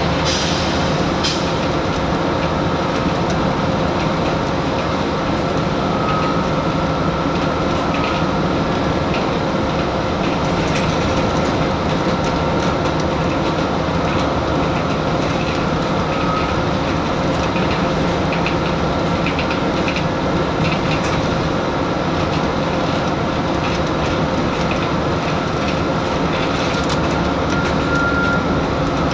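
Scania N94UD double-decker bus underway, heard from the upper deck: steady engine and road noise with light rattling and a faint steady whine.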